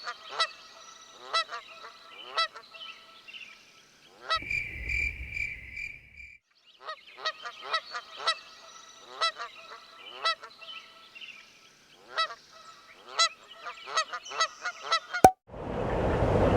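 Geese honking over and over in short, irregular calls. About four seconds in, a pulsing high beep over a low rumble cuts in for about two seconds. Near the end a sharp click is followed by a steady rushing noise.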